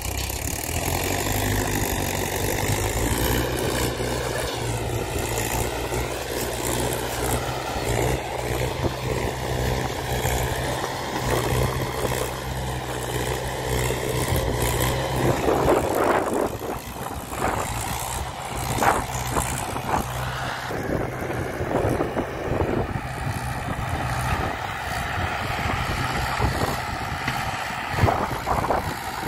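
Mahindra 575 tractor's diesel engine labouring under a heavy trolley load, with a steady low note and a wavering higher whine. About halfway through the sound turns choppier, with irregular loud bursts.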